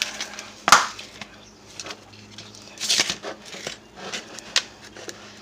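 Several sharp knocks and crackly handling noises from a lump of microwave-hardened gummy candy being worked by hand. The loudest comes about a second in, with more around three seconds and near the end.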